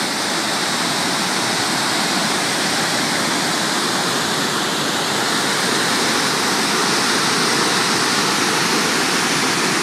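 The Great Falls of the Passaic River, a large waterfall in heavy flow, making a loud, steady, unbroken rush of falling water.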